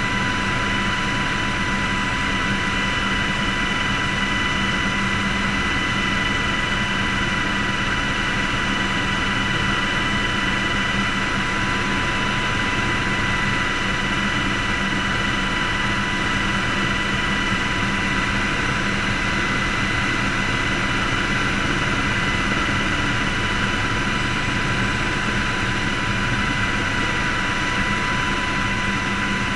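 Helicopter in flight, heard from inside the cockpit: a steady rumble with a high whine held on one pitch, unchanging throughout.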